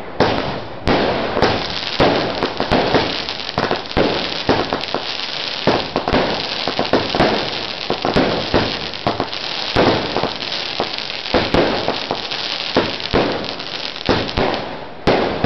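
Weco Big Crackles and Power Box firework cakes going off together: a dense, continuous crackling with a louder bang about every half second.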